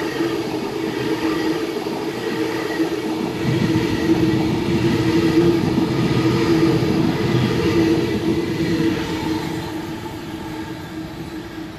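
Sydney Trains Waratah (A set) double-deck electric train passing along the platform. A steady hum runs under a deeper rumble of wheels on rail, which swells in the middle and fades near the end as the train draws away.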